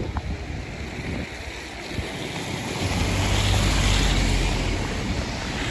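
Car driving through a snowstorm, heard from inside: steady road and wind noise that grows louder and deeper about three seconds in.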